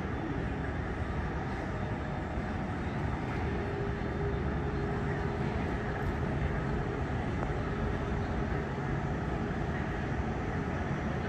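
Airbus A380-841's four Rolls-Royce Trent 900 engines at idle as the jet taxis in: a steady low rumble, with a faint hum for a few seconds midway.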